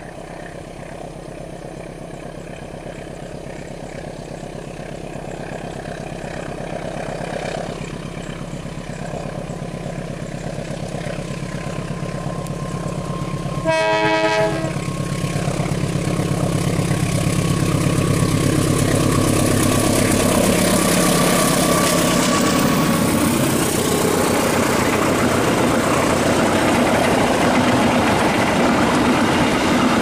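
Diesel locomotive hauling a passenger train, its engine drone growing louder as it approaches, with one short horn blast about fourteen seconds in. The train then passes close, the engine pitch dropping as the locomotive goes by and the wheels clattering over the rail joints of the coaches.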